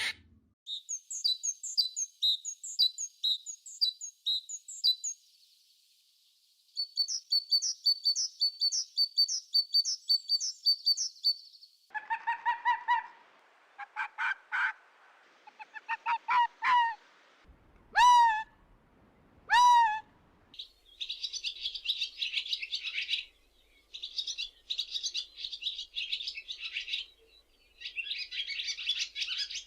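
A series of bird calls in several stretches: rapid runs of short, high chirps, then lower-pitched calls with two loud cries that fall in pitch past the middle, then raspy, noisy calls in short bursts.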